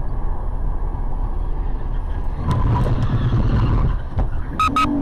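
Road and engine noise from inside a car cruising on a freeway: a steady low rumble that grows louder about two and a half seconds in. Near the end come two quick high beeps, then a short low steady tone.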